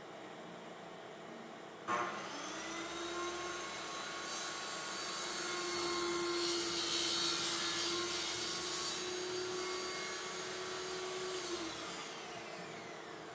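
Worm drive circular saw mounted under a homemade sliding table saw, switched on about two seconds in and running up to speed with a steady whine. It cuts through a sheet of MDF as the sliding table is pushed past the blade, loudest in the middle. Near the end it is switched off and its pitch falls as it winds down.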